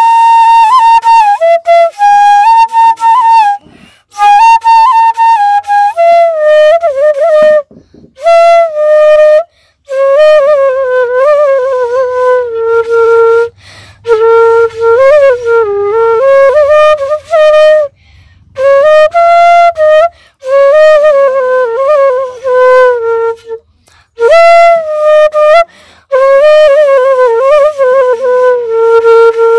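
Solo melody on a flute-like wind instrument, played loud in short phrases with bending, wavering pitch and brief pauses between them.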